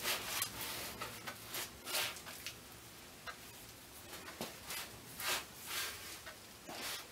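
Soft rustles and light scrapes of hands and clothing handling a heavy steel telescope mount as it is swung around, with a faint low hum underneath.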